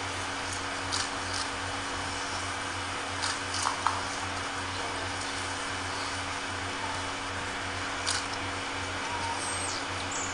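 Steady background hiss with a low hum, broken by a few brief soft knocks or rustles about a second in, around three and a half seconds in, and about eight seconds in.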